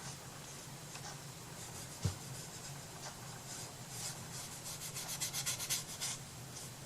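Hand rubbing and scraping strokes on paper and wood, with one low knock about two seconds in and a quick run of short, fast strokes about five seconds in.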